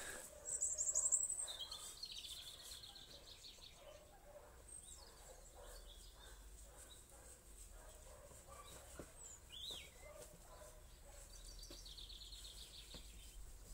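Small songbirds singing: a rapid high trill near the start and another toward the end, with a short falling whistle between them, over faint outdoor background noise.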